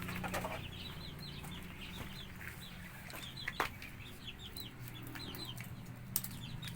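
Young chicks peeping without pause: a quick run of short, high cheeps that fall in pitch, over a low steady hum. A couple of sharp clicks come in partway through.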